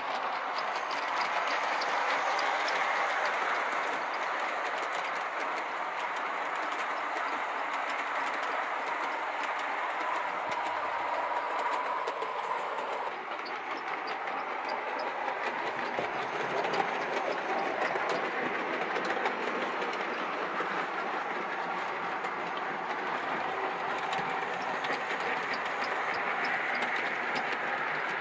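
Vintage O-scale brass Consolidation steam locomotive and its passenger cars running on outside-third-rail track: a steady rolling rumble of wheels on the rails, dotted with many small clicks.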